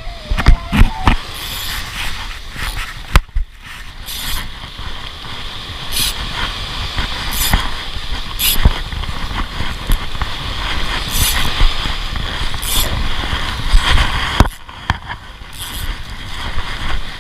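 Ryobi spinning reel being cranked to retrieve line on a fish, a steady mechanical whir with irregular clicks. The cranking stops briefly about three seconds in and eases for a moment near the end.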